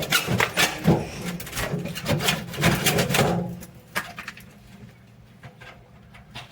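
Knocking and scraping of a heavy air-conditioner unit being worked out of its wall opening: a busy clatter of knocks for about three and a half seconds, then a few quieter knocks.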